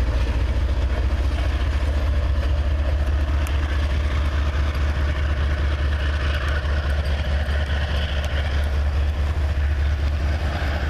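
Diesel locomotive engine running with a steady, low rumble.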